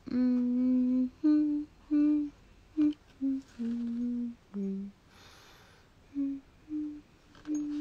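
A woman humming a slow tune to herself, a string of held notes each lasting up to about a second. About five seconds in comes a brief rustle of book pages.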